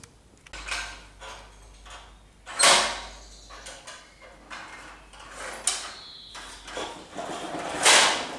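Mechanical rattling and scraping from a garden tractor being rolled across a tiled floor for a brake test, in four loud rushes, the loudest about three seconds in and near the end.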